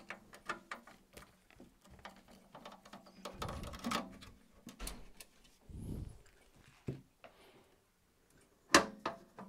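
Phillips screwdriver undoing the screws of an inverter charger's end panel, with small clicks, scrapes and handling rumbles. A sharp knock near the end as the panel is pulled off.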